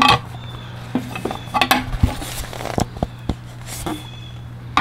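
Light clatter and a scatter of short knocks and clicks from a plastic oil funnel being handled and fitted into a tractor's engine oil filler neck, over a steady low hum.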